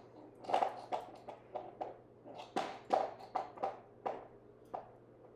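A run of irregular sharp taps and knocks, several a second.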